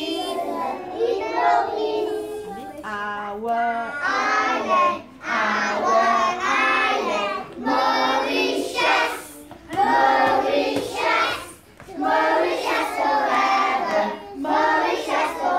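A group of young children singing together in phrases, with short breaks between the lines.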